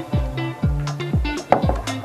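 Background music with a steady electronic beat: a deep, downward-sliding kick drum about twice a second, over held bass notes and sharp clap or hi-hat hits.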